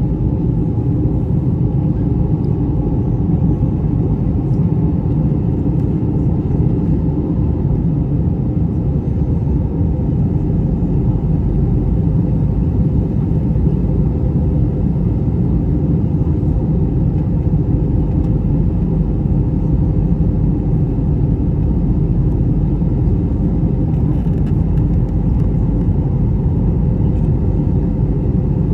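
Airbus A321-200 cabin noise in flight: a steady low rumble of engines and airflow, unchanging throughout.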